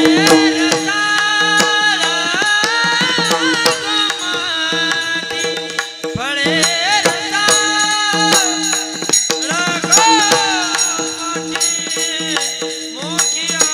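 Marathi devotional kirtan music: a singer's long, ornamented melodic lines over a steady held drone, with tabla and small jingling hand cymbals keeping the rhythm.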